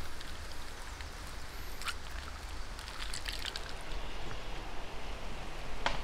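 Hands moving pieces in a wooden bowl of ice water, with a few sharp clicks and small splashes from the ice and water. A steady hiss of running water sits underneath.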